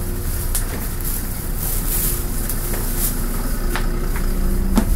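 Cabin noise inside a LiAZ 6213.22 articulated city bus: the engine runs with a steady low hum, and a few short rattles or knocks come from the body and fittings, the sharpest near the end.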